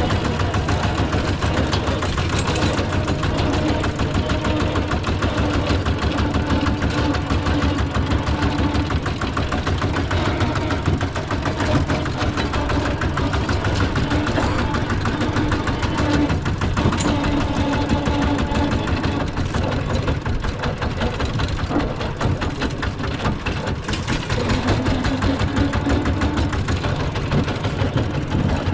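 Diesel engine of a rice combine harvester running steadily with a fast, even chug.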